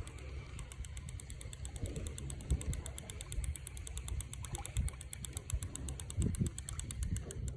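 2019 Shimano Stradic C5000XG spinning reel giving off a rapid, even ticking, about eight clicks a second, starting about half a second in and stopping just before the end: the abnormal noise the reel makes in use.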